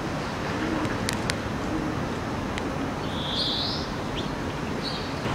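Outdoor ambience with a steady background hiss; a small bird gives a short chirping call twice in the second half. Two sharp clicks come in quick succession about a second in.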